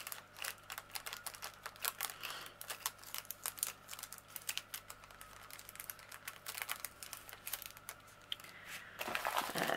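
Light, irregular clicking and tapping of small plastic diamond-painting drills being picked up and sorted by fingers and long fingernails on a plastic-covered canvas, with a plastic rustle coming in near the end.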